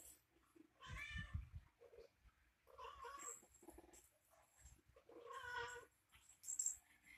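A cat meowing three times, about two seconds apart, each call drawn out for half a second or more.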